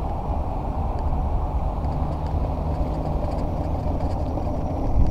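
Steady wind rushing over the microphone together with a low rumble from an electric unicycle rolling across paving stones.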